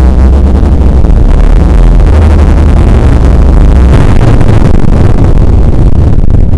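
Greatly slowed-down, bass-boosted recording of a room shaking in an earthquake: a loud, distorted, continuous low rumble. The deepest bass thins out about four seconds in.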